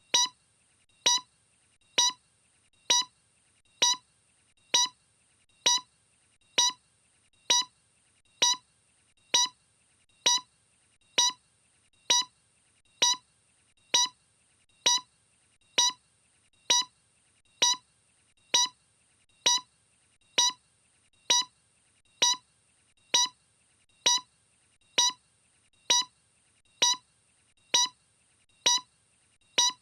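A short electronic beep repeating at a steady, even pace, a little faster than once a second.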